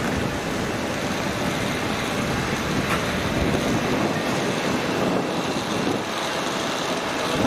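Steady airport apron noise beside a parked Boeing 737: a loud, even rush of aircraft and ground-equipment running, with a faint steady whine in it.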